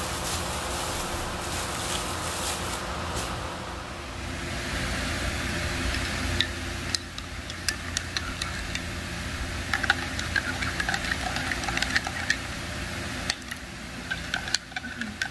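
A metal spoon stirring coffee in a ceramic mug, clinking against the sides in many quick, irregular taps over a steady low hum. A hiss fades out in the first few seconds.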